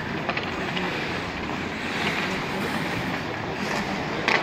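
Ice skates scraping and gliding on the rink, with hockey sticks and a puck clacking. There is a sharp clack near the end.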